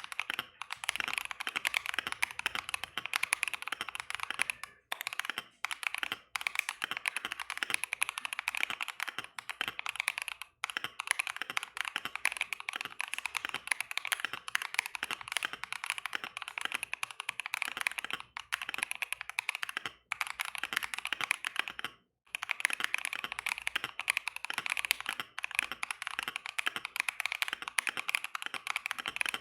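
Fast typing on a KBD75 V3 mechanical keyboard with Gazzew Boba U4T tactile switches and ASA-profile keycaps: a dense run of key clacks broken by a few short pauses. The plate and PCB foam are removed, with the case foam kept.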